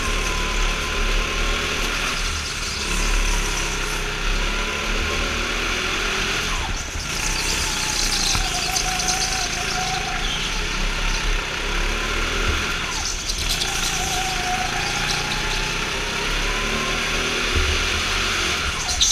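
Go-kart at speed, its drive note dropping sharply about seven seconds in and again six seconds later as it slows for corners, then climbing again along the straights, over a steady rumble.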